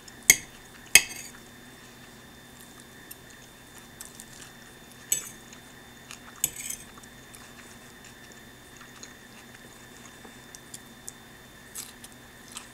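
Metal fork clinking and scraping against a plate while scooping up salad: two sharp clinks about a third of a second and a second in, then a few softer taps scattered through.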